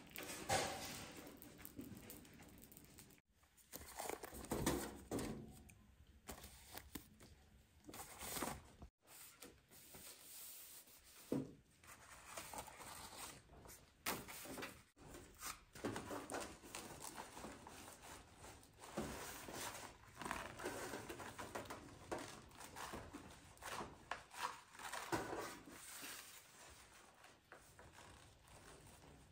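Quiet, irregular rustling and crinkling with light knocks: hands handling things at close range.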